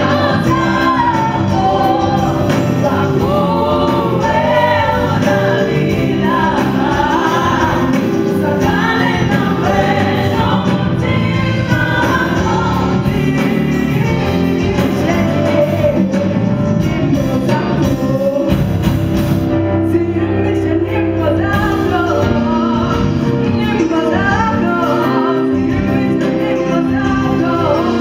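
A young female singer singing a song live into a handheld microphone, with female backing vocalists and musical accompaniment, amplified through the stage sound system.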